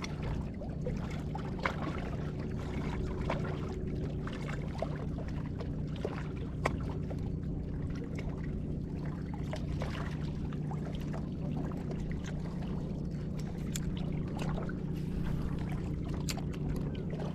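Water trickling and lapping, with a steady low hum underneath and scattered small clicks.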